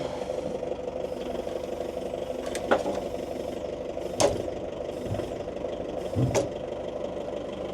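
Forklift engine idling steadily, with three sharp clicks spread through.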